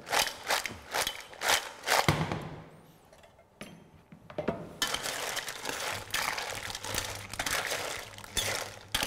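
Stainless-steel pot and mussel shells clinking. From about five seconds in, a steady hiss of the mussels steaming in white wine, with shells clicking against each other and the pot as they are stirred.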